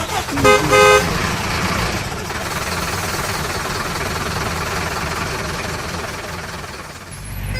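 A vehicle horn beeps twice in quick succession, then a steady engine-like running noise carries on. A deeper, steady hum sets in near the end.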